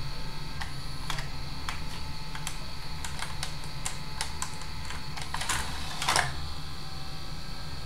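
Opened DVD player's disc mechanism clicking irregularly after being started with play pressed: about a dozen light clicks, then two louder scraping clicks near the end, over a steady low hum. The disc fails to start, which is typical of a tray sensor left misplaced after the motors were removed.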